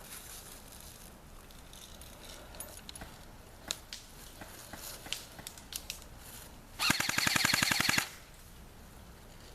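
Airsoft gun firing one full-auto burst of about a second, roughly fifteen shots a second, after a few seconds of scattered sharp clicks and snaps.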